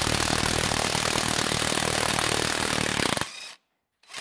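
Parkside PASSK 20 Li A1 cordless impact wrench hammering steadily on a wheel nut, stopping abruptly about three seconds in.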